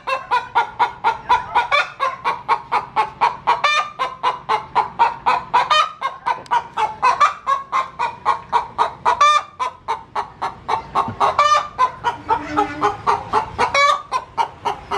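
Chickens clucking close by: a steady run of short, rapid calls, about three a second.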